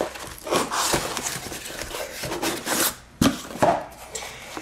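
Cardboard box being opened by hand: its flaps and tuck-in lid scrape and rub. Two sharp knocks come about three seconds in, as the lid comes free.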